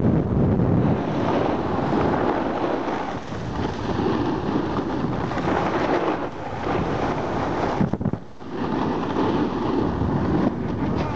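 Wind buffeting the microphone of a camera carried down the slope by a moving snowboarder, mixed with the scrape of snowboards on packed snow. The rushing noise briefly drops about eight seconds in.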